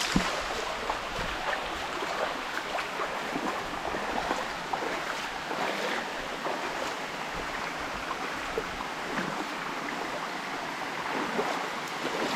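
Waterfall water rushing steadily over rocks, a continuous noisy rush that is loud enough to be called too noisy.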